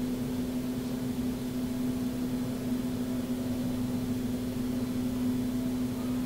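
Steady background hum at one constant pitch over a faint hiss, unchanging throughout; the soldering itself adds no distinct sound.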